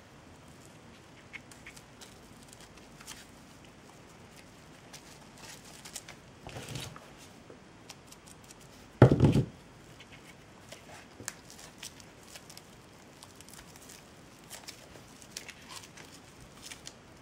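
Hands handling jute strips: faint scattered clicks and rustles, a louder rustle about six and a half seconds in, and a short dull thump about nine seconds in.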